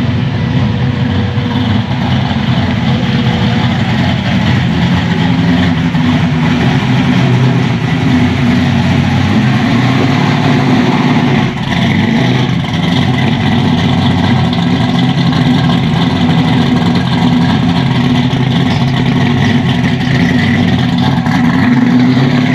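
Classic car engines driving slowly out of a car park at low revs, with a loud, steady rumbling exhaust. A brief break comes about eleven seconds in. After that, a late-1960s sedan's engine rumbles as it rolls past and pulls away.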